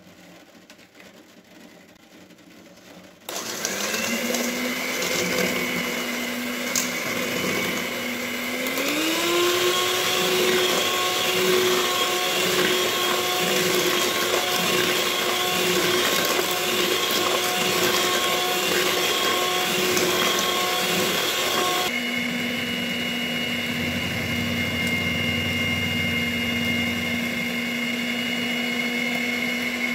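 Electric hand mixer beating batter in a stainless steel bowl. It switches on about three seconds in with a steady whine, steps up to a higher speed a few seconds later, and runs at a lower pitch for the last third.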